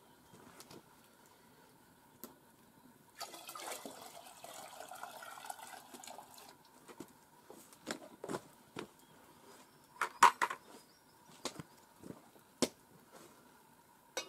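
Splashing water for about three seconds, then scattered sharp knocks and clatter, the loudest a quick cluster of knocks about ten seconds in.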